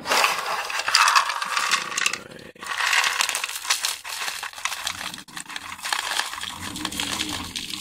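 Small hard firework stars being poured into a hollow firework shell casing: a dense rattling patter of many small clicks, with a short pause about two and a half seconds in.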